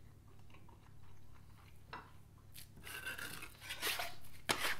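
A man chewing a bite of baked tray kebab (tepsi kebabı), then from about halfway a series of rustles and light knocks from food being handled on the counter, loudest near the end.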